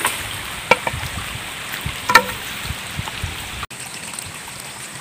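A few light knocks and snaps of a wooden pole being handled and trimmed, twice sharper near the second second, over a steady background hiss.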